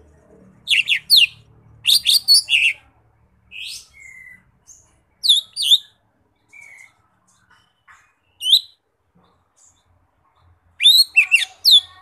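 Lesser green leafbird (cucak ijo mini) singing: short bursts of sharp, high, quickly falling whistled notes. The bursts come in clusters a second or more apart, with the busiest bursts near the start and again near the end.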